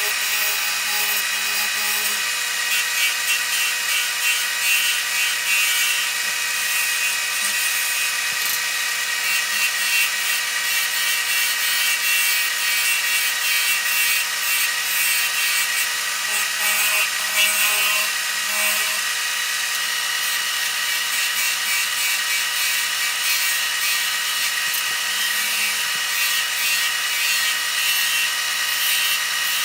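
Wood lathe running with a steady whine while a tool works the spinning Northern Catalpa blank, a scraping hiss that swells and fades.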